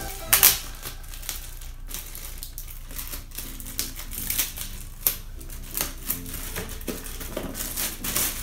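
Plastic packaging crinkling and crackling as a bag is opened and a small cellophane-wrapped box is pulled out. The crackles are irregular, with the loudest about half a second in.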